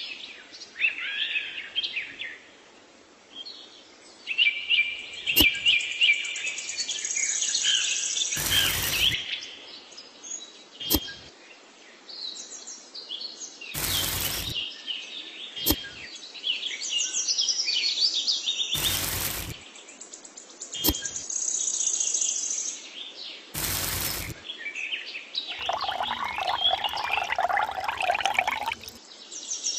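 Birds chirping and twittering. Four brief loud bursts of noise come about five seconds apart, with a few sharp clicks between them and a denser rattling in the last few seconds.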